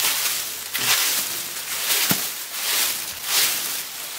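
Strips of paper packing filler being scrunched and tossed by hand, a continuous crinkling rustle with a few sharp crackles.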